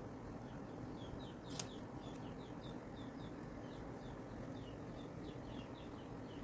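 A small bird chirping over and over in short, high, falling notes, two or three a second, over a low steady hum. A single sharp click about one and a half seconds in.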